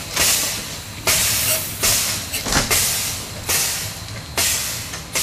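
Small narrow-gauge steam tank locomotive chuffing as it pulls away slowly, one hissing exhaust beat about every second, each starting sharply and fading.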